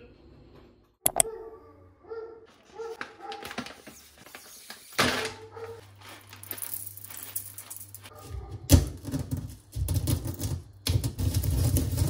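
Roasted coffee beans rattling as they are poured from a paper bag into a black stone mortar. From about eight seconds in, a stone pestle crushes and grinds them, with dense crunching and heavy knocks against the mortar.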